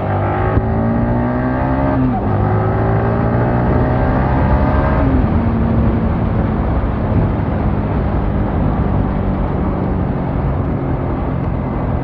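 Single-cylinder motorcycle engine accelerating hard through the gears, its pitch climbing and then dropping at two gear changes about two and five seconds in. It then runs steadier at speed, with wind noise rising over it.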